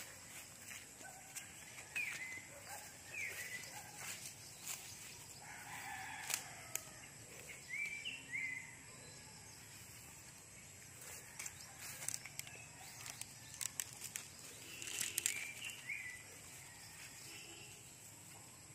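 Outdoor yard ambience: scattered short, falling bird chirps over faint crackles and rustles of dry leaves and twigs underfoot, with the louder crackles about six and fifteen seconds in.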